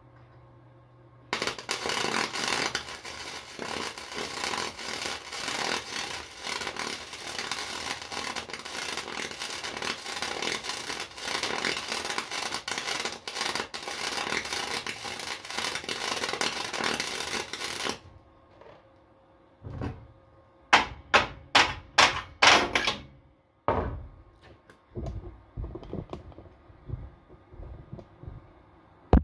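A 140-amp wire welder running .035 flux-core wire on a mower deck: a steady crackling arc for about sixteen seconds that cuts off sharply. A couple of seconds later comes a rapid run of about eight sharp strikes on metal, then a few lighter knocks.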